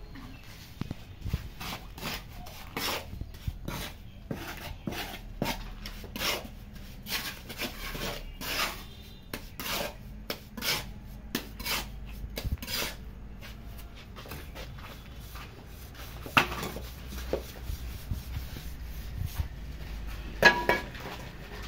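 Metal hand scraper and trowel scraping and scooping wet cement mortar off a concrete floor, in repeated strokes about one or two a second that thin out after about twelve seconds. A sharp metallic clink comes near the end.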